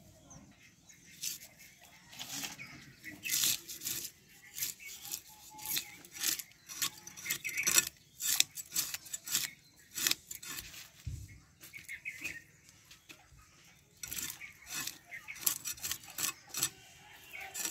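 A blade scraping and cutting through a tilapia: many quick, irregular scraping strokes, with a dull knock about eleven seconds in.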